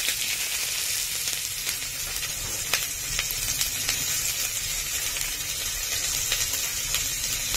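Chopped onion frying with cumin seeds in hot oil: a steady sizzle with a few faint crackles.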